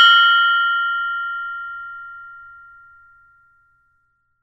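Mindfulness bell ringing out from a single strike: a bright, high, metallic ring of several tones that fades steadily away, gone by about three seconds in. The lowest tone lingers longest. This is the periodic meditation bell that sounds every 20 seconds as a reminder to return to the breath.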